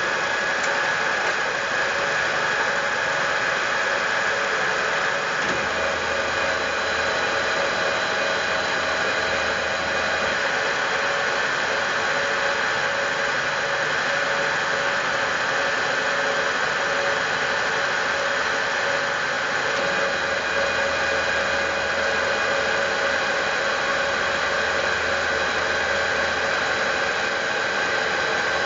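Milling machine running steadily: an even mechanical whine over a constant hiss, with no change in speed.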